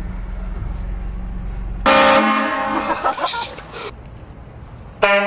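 Compressor-fed train horns on a pickup truck sounding two loud blasts of a chord. The first comes about two seconds in and dies away over about two seconds; the second starts near the end. A low engine hum runs underneath before the first blast.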